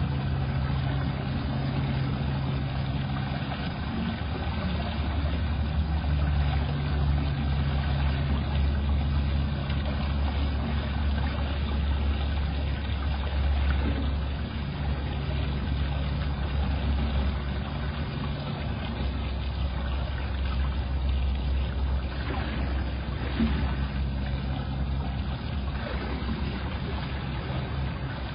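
Steady low mechanical hum over a constant hiss, with a deeper droning tone that cuts in and out every few seconds.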